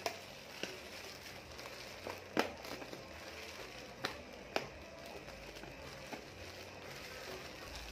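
Plastic fish bag crinkling in the hands as it is worked open, with a handful of sharp crackles, the loudest about two and a half seconds in, over a low steady hiss.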